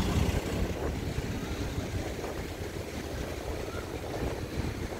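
Pickup truck driving past close by, its engine and tyres loudest at the start and fading within about a second, leaving a steady low rumble of street traffic.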